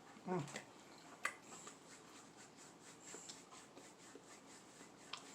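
Faint scattered clicks and rustles of someone eating instant noodles and handling the utensils, with a sharper click about a second in and a brief voice sound just after the start.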